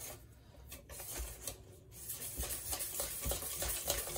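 Wire whisk beating a thick fish-and-chips batter in a stainless steel bowl, the wires scraping and tapping against the metal. A few light strokes at first, then quick, steady, rhythmic whisking from about two seconds in.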